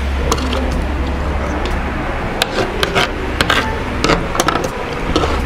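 Metal fork and spoon clicking and scraping against a plate as food is picked up, a scatter of sharp clinks over a steady low hum.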